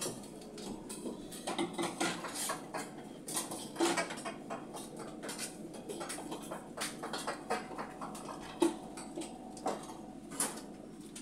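Scattered light clinks and knocks of kitchen utensils and dishes being handled, coming at irregular moments.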